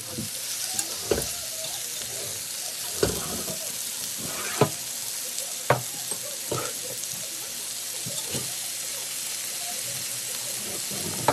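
Seasoned, skinless chicken thighs frying in olive oil in a cast iron skillet on medium heat: a steady sizzle with a handful of sharper pops scattered through it.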